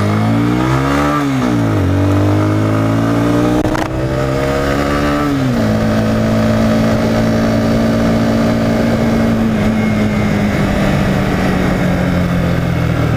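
Honda CBR125 motorcycle engine pulling through the gears: the revs climb, drop at a change about a second in, climb again, then drop just after five seconds and settle to a steady, slowly falling pitch as it cruises.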